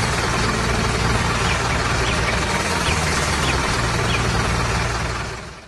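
Heavy vehicle engine running with a steady rumble under a broad noisy hiss, fading out near the end.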